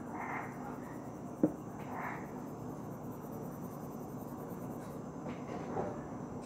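Fingertip rubbing over pencil shading on paper to blend it, a few soft brushing strokes over a steady low hum. One sharp click about a second and a half in.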